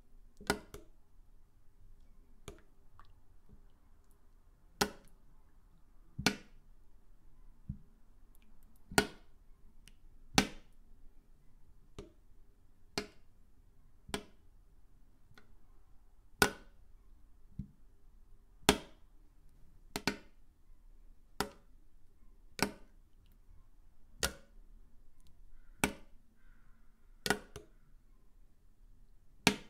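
Metal spoon clinking against a bowl of soup while scooping, about twenty short clinks spaced every one to two seconds.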